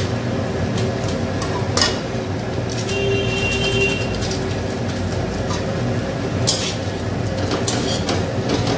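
Steady low kitchen rumble and hum under noodles frying dry in a metal kadai, with a few short scrapes of a steel spatula against the pan, most of them near the end as the noodles are stirred.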